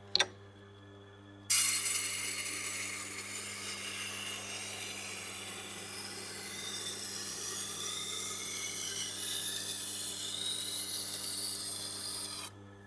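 Knife blade being ground against the turning stone of a Tormek wet sharpener: a steady scraping hiss that starts suddenly about a second and a half in and stops suddenly near the end, over the low steady hum of the sharpener's motor.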